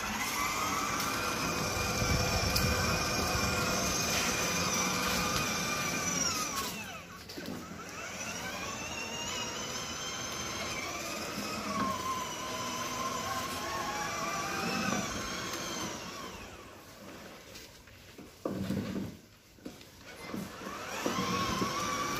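Electric motors of a children's battery-powered ride-on car whining as it drives, the pitch rising as it speeds up and falling as it slows, several times over. The whine drops away for a few seconds about three-quarters of the way through, then rises again near the end.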